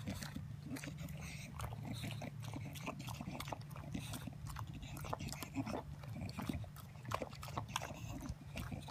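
Bulldog licking and chewing a homemade frozen dog ice cream, with irregular wet smacking clicks.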